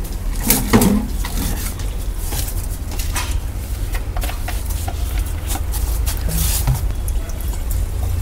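Handling sounds at a wall tap and a plastic bucket of liquid: scattered clicks, knocks and rustles, loudest about a second in, over a steady low rumble.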